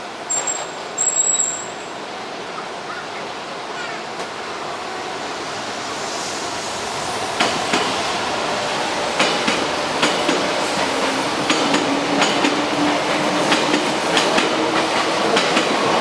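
A train approaching and passing: the rumble grows, and from about seven seconds in the wheels click over the rail joints in quick groups. A brief high squeal comes near the start.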